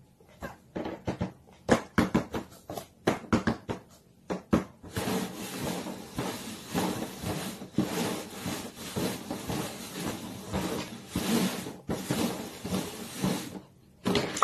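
Paper cups being tapped and slid around on the top of a cardboard box: first a run of quick separate taps, then several seconds of dense knocking and scraping.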